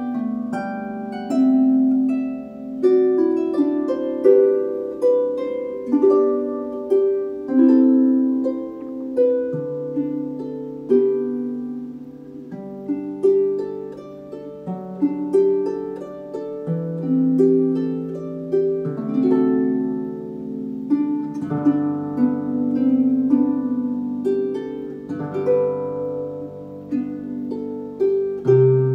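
Solo harp music on a Dusty Strings FH36S 36-string lever harp: a gentle melody of plucked, ringing notes over slower bass notes that change about every two seconds.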